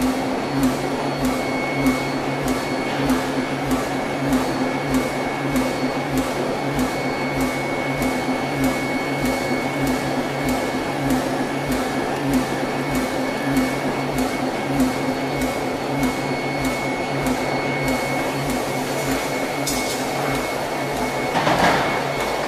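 Ring rolling mill running as it rolls a red-hot steel ring: a steady machine hum and whine with a regular ticking. Near the end a louder, rougher burst of noise.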